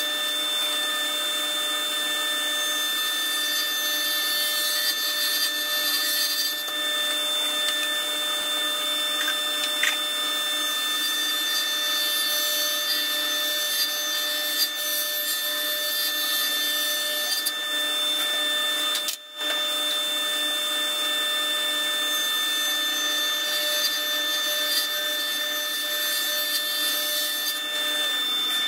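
Table saw running steadily with a high motor whine as long boards are ripped into narrow strips; the sound drops out for an instant about two-thirds of the way through.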